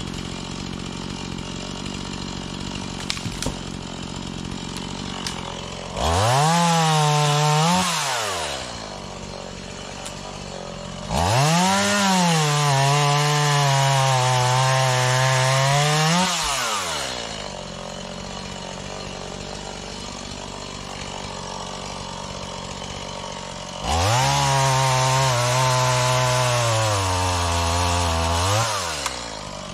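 A small Stihl two-stroke chainsaw idles, then is opened up three times to cut into wood: once briefly, then for about six seconds, then for about five. Each time the engine speed sags while the chain is in the wood and picks up again as it comes free, before dropping back to idle.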